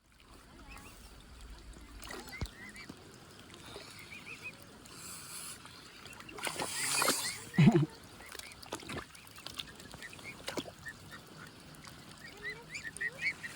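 Swan cygnets peeping: soft, high calls in short runs. About seven seconds in, a loud rushing, hiss-like noise ends in a short low call from an adult swan.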